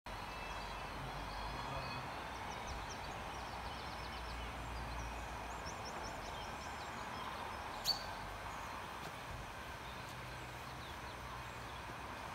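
Outdoor ambience: a steady background hiss with a low rumble, over which a bird gives quick runs of repeated high-pitched chirps. A single sharp click comes about eight seconds in.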